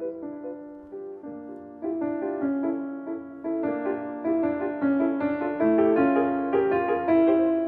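Background piano music: a gentle classical-style piece of single struck notes that ring and fade. It is softer for the first couple of seconds, then fuller and louder.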